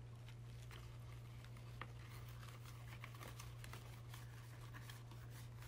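Faint light clicks and crinkles of a compress patch and its backing being handled, over a steady low hum.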